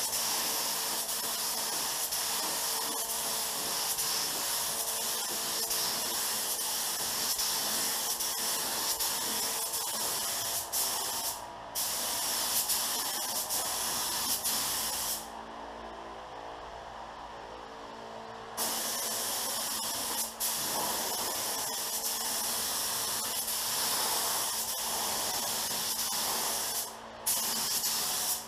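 Pro-Tek 4000 HVLP spray gun spraying base coat with a steady air hiss, run at about 25 PSI. The hiss stops briefly between passes, the longest break about three seconds near the middle.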